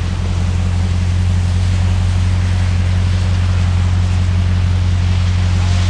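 2021 RAM TRX's supercharged 6.2-litre V8 running at a steady speed with a deep, even drone, with a hiss of air or road noise over it.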